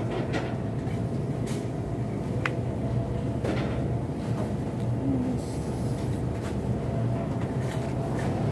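Steady low rumble and hum of a supermarket freezer aisle, with a few faint clicks and knocks scattered through it.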